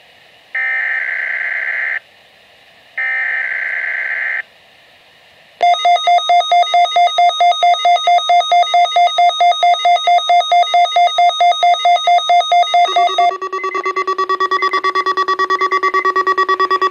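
Weather radio alert test tones: two brief buzzy digital data bursts of the kind in a SAME alert header. Then a loud pulsing electronic alert tone at about four beeps a second, which switches about 13 seconds in to a lower, faster pulsing alarm tone.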